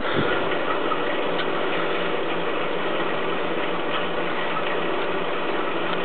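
Steady mechanical running noise with a few faint clicks from a homemade Babington-ball waste-oil burner rig, its flame out after a safety shutdown and waiting to be reset.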